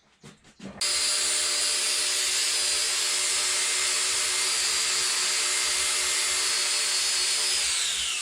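Electric power tool switched on at full speed, running steadily at a constant high pitch while cleaning a metal engine part, then switched off near the end and spinning down with a falling whine. A few light clicks come just before it starts.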